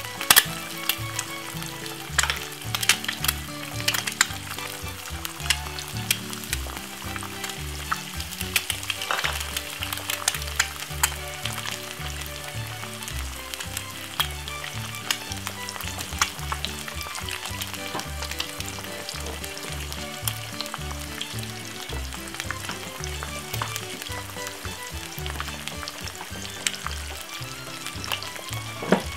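Eggs frying in bacon fat in a non-stick pan: a steady sizzle with frequent sharp crackles and spits, a few of them loud near the start.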